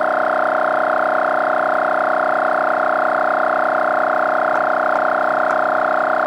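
Small 12 V air compressor running steadily with an even, high motor whine, pumping air into a trailer tire whose sidewall is bulging and splitting.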